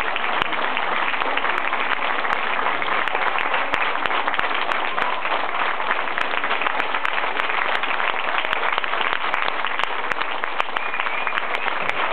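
Audience applauding: dense, steady hand-clapping from many people.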